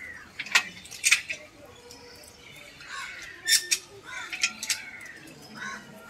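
Several sharp clacks, some in quick pairs, over faint background voices.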